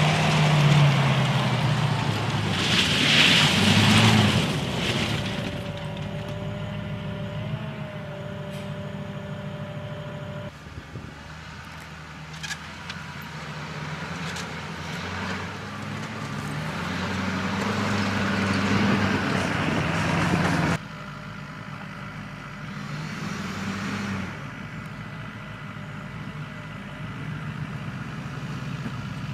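Military vehicle engines running and driving, heard across several clips with abrupt changes in sound.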